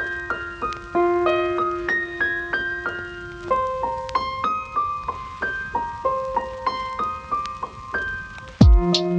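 Background music: a gentle electric-piano melody of short decaying notes over a held low note, with a drum beat coming in near the end.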